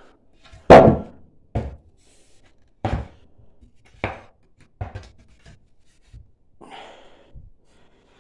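Wooden parts of a dismantled chair knocking and thudding against each other and the floor as they are handled: about six separate knocks at uneven intervals, the first one the loudest.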